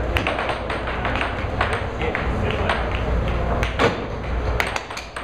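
Sharp, irregular clacks of air hockey pucks striking mallets and table rails, the loudest a little under four seconds in, over the steady low hum of the air table's blower.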